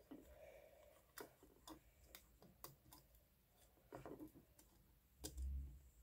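Faint clicks and light taps of a plastic two-outlet socket and a thin jumper wire being handled as the wire is fed into the socket's ground terminal. A dull low bump about five seconds in is the loudest sound.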